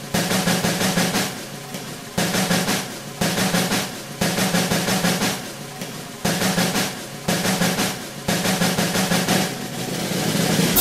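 Music: snare drum rolls played in short repeated phrases, about one a second, each starting with a hard stroke and fading, over a steady low tone.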